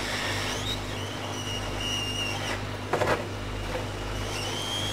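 Hot air gun blowing steadily on a motherboard, a steady rushing whir with a faint high whistle that comes and goes, heating the hard glue at the corners of a PCH chip to soften it. A brief click about three seconds in.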